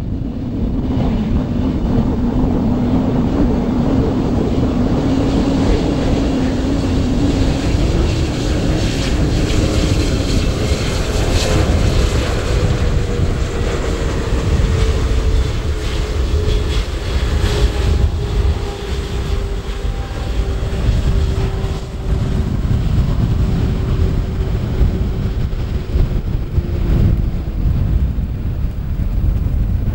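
Boeing 777-300ER's GE90 turbofans on approach and flyover: a steady, loud jet rumble with a whining engine tone that slowly falls in pitch as the airliner passes.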